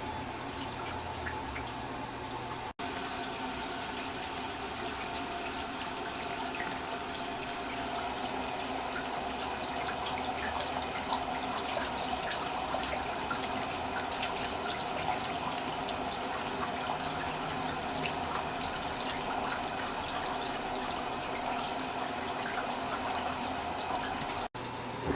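Toshiba AW-404 fully automatic washing machine running with water rushing in the tub: a steady wash of water noise with scattered small ticks.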